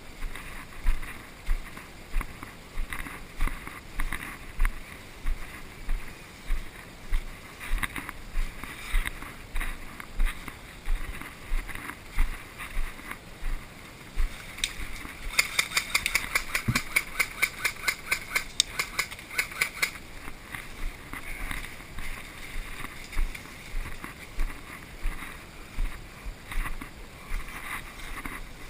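Footsteps crunching through leaves and undergrowth at a steady walking pace, about one and a half steps a second. About halfway through, a rapid run of sharp clicks rattles for about four seconds before the plain steps go on.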